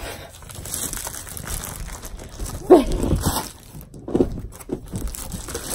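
Handling noise: a plastic bubble mailer crinkling and rustling, with a sharp bump a little under three seconds in and a few short wordless vocal sounds.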